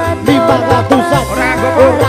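Live campursari music: an electone keyboard with Javanese gamelan percussion, over a steady bass line.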